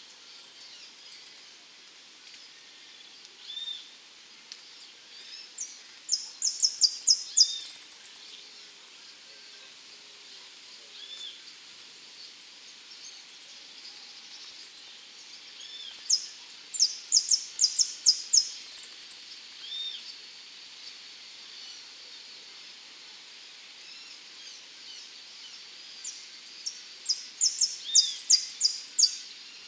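Saffron finch singing. There are three bursts of rapid, sharp high notes about ten seconds apart, and a short chirp repeats every few seconds between them over a faint background hiss.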